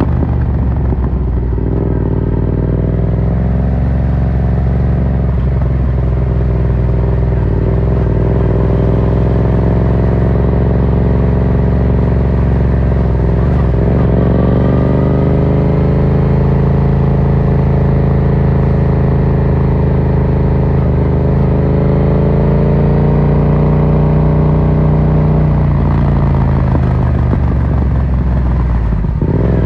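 Yamaha MT-07's parallel-twin engine through an Akrapovic carbon full exhaust under hard riding. The revs climb, drop sharply at gear changes and climb again several times, with a longer stretch of steady high revs in the middle.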